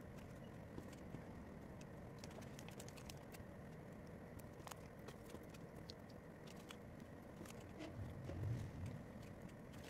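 Faint handling noise: scattered light clicks and taps of fingers pressing foam stickers onto a paper picture, over a low steady hum, with a soft low thump about eight and a half seconds in.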